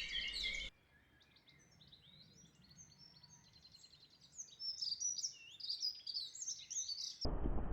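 Songbirds singing: a quick run of high chirps and trills, faint at first and louder from about four seconds in. Under a second in, a louder, different birdsong clip cuts off, and near the end a louder clip of low knocking cuts in.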